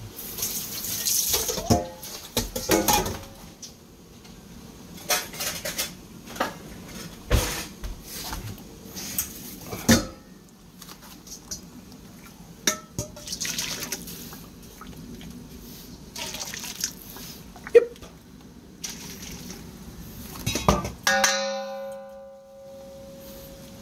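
Water being scooped out of a stainless steel stockpot with a small metal cup and poured off: repeated splashing and pouring, with sharp metal clinks and knocks of cup against pot and bowl. A short pitched ringing tone sounds near the end.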